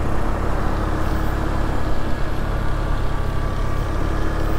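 Steady low road and engine rumble of a vehicle being driven, with a faint steady hum that grows a little stronger partway through.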